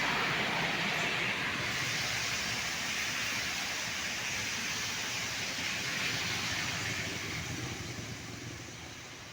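Passing road traffic: a steady rush of engine and tyre noise that fades away over the last couple of seconds as the vehicle moves off.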